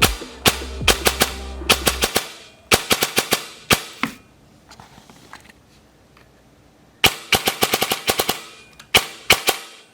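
An airsoft electric gun firing several short bursts of rapid shots and a few single shots, in a demonstration of precocking trigger response. There is a quiet gap of about three seconds in the middle.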